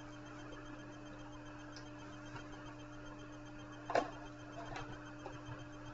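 Quiet room with a steady electrical hum. About four seconds in comes a single sharp knock, followed by a few fainter clicks, as a cardboard takeout sandwich box is handled during eating.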